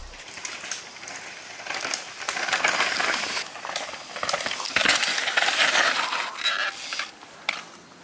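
Mountain bike tyres rolling and skidding over dry forest dirt and pine litter, rising and falling in several swells, with scattered clicks and rattles from the bike.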